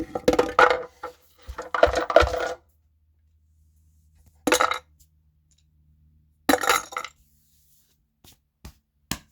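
Hard clinking and clattering of small subwoofer parts being handled as a circuit board's case is opened. It comes in four short bursts, then a few single clicks near the end.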